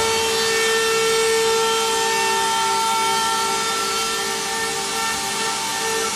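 Spindles of a multi-spindle CNC router running at high speed, giving a steady whine with overtones over a hiss of cutting as the router works aluminum composite panel.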